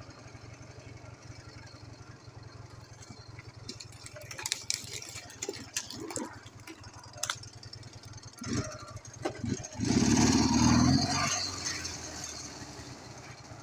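Ural motorcycle's flat-twin engine running steadily at low revs, with scattered knocks and rattles from riding over rough ground. About ten seconds in comes a loud rush of sound lasting over a second, then it settles back.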